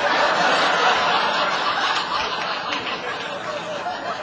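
Comedy-club audience laughing, a dense wash of crowd laughter that dies down gradually.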